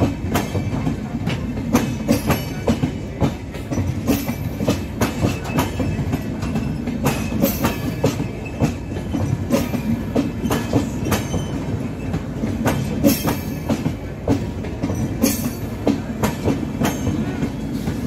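Passenger coaches of an express train passing close by at speed. There is a steady rumble of wheels on rails, with frequent sharp clicks as the wheels cross rail joints.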